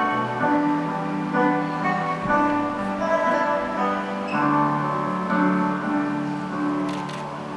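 Instrumental music with slow, held melodic notes, the recorded accompaniment for a Chinese dance.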